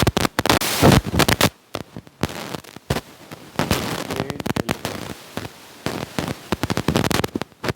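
Irregular crackling and clicking noise in uneven bursts.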